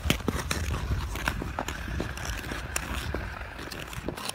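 Ice skates on an outdoor rink: blades clicking and scraping on the ice, with a longer scraping hiss in the middle, under a low rumble.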